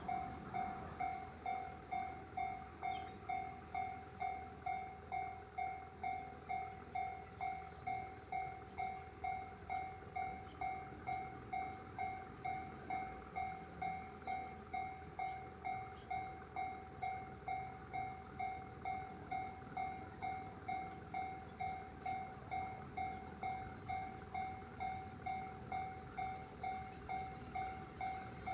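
Japanese railway level-crossing warning bell ringing, a clanging two-pitch ding repeating evenly about twice a second.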